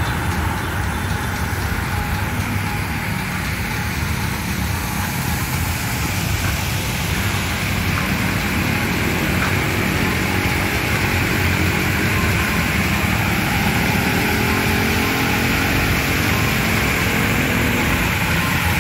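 Steady road traffic, cars and motorcycles running around a traffic circle. In the second half a steady hiss rises, fitting the splashing of the running fountain in the middle of the circle.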